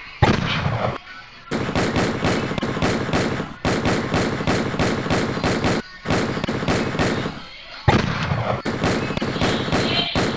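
Automatic gunfire sound effect, several shots a second, in bursts of about two seconds with short breaks between them.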